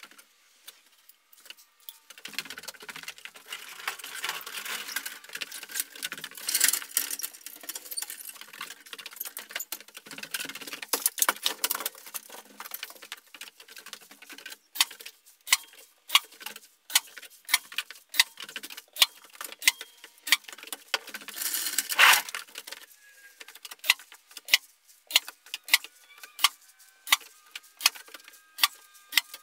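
Hands-on work hanging a ceiling drywall sheet on a drywall lift: rough scraping and rustling, with one louder burst. After that comes a run of sharp clicks, about one or two a second.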